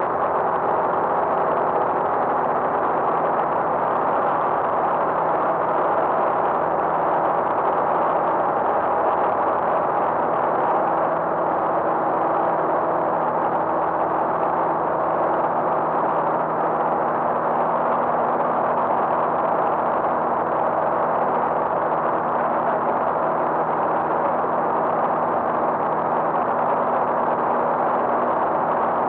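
Light aircraft's engine and propeller running steadily in flight, heard from inside the cabin as an even drone with a few constant low hums under a rushing noise.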